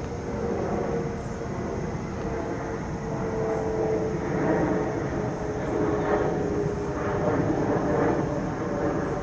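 Jet airliner passing overhead: a steady low rumble with an engine whine that slowly falls in pitch.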